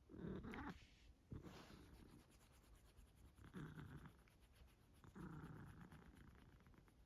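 Domestic cat snoring softly in its sleep: four faint, raspy breaths a second or two apart.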